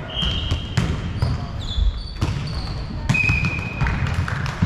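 Basketball game on an indoor court: the ball thudding as it is dribbled, with sharp knocks and several short, high sneaker squeaks on the floor.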